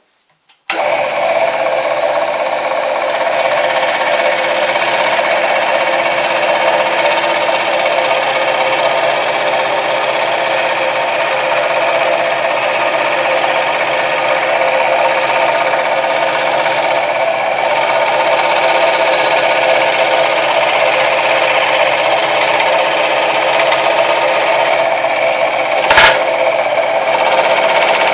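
1962 FROMMIA 187 scroll saw running and cutting plywood, its blade stroking rapidly up and down. The sound starts suddenly just after the beginning and holds steady, with one brief sharp knock about two seconds before the end.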